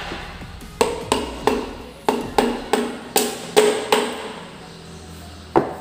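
Wooden hammer handle tapping a Toyota K3-VE piston crown, driving the ringed piston through a ring compressor down into its cylinder bore. About a dozen quick taps at roughly three a second, then one more near the end.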